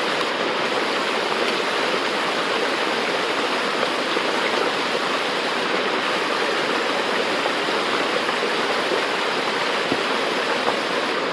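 Steady, loud rush of a mountain creek's water running over rocks close by.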